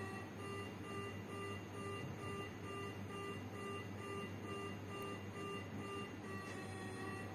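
Phacoemulsification machine sounding its electronic feedback tones: a steady tone with a repeating beep about two to three times a second. Near the end the beeping stops and the tone changes to a different steady pitch, the machine signalling a change in its vacuum or ultrasound-power state as the nucleus is chopped and emulsified.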